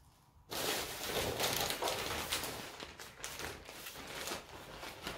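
Rustling and scraping of potting soil and a plant pot being handled during repotting: a busy run of short scratchy noises starting about half a second in.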